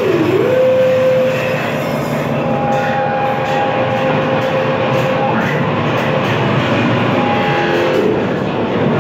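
Live experimental electronic music: a dense, rumbling noise drone with a held tone that bends down and back up near the start, and a second, higher held tone that comes in for a few seconds in the middle.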